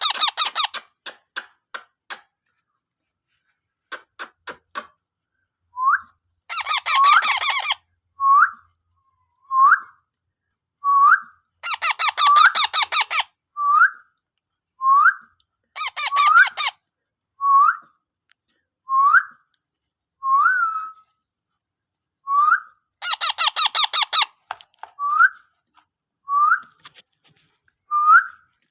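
Ringneck parrot calling: harsh screeching bouts every few seconds, between them short upward-hooking whistled chirps repeated about every one and a half seconds. There are runs of rapid clicking in the first few seconds.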